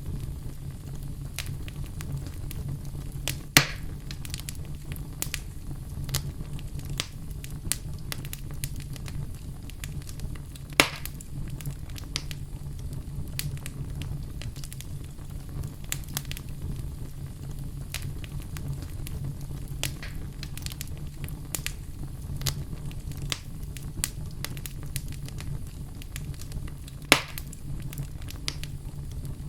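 Fire burning in a fireplace: a steady low rumble of flames with frequent small crackles, and three louder pops, about three and a half seconds in, about eleven seconds in and near the end.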